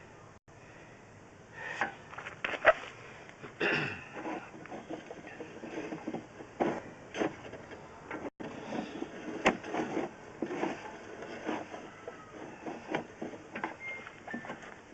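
Irregular clatter of sharp knocks and clicks, the loudest a few seconds in, like equipment being handled.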